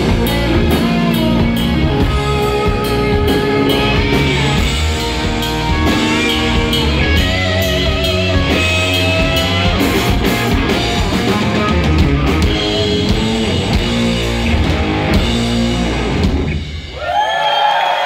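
Live rock band, with electric guitars, bass and a drum kit, playing loudly. Near the end the music breaks off and voices from the crowd start cheering.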